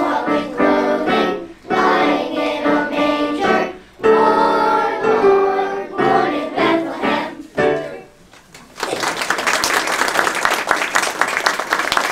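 A children's choir singing with piano accompaniment; the song ends about eight seconds in. After a brief pause the audience breaks into applause.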